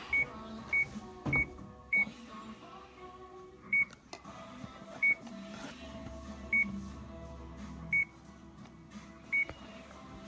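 Stair-climbing machine's console giving short electronic beeps, about nine at uneven intervals, as its buttons are pressed to set up the climb.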